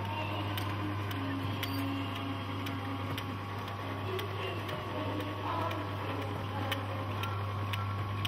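Steady low mechanical hum with scattered light clicks, from the small motors and mechanisms of a model nativity display.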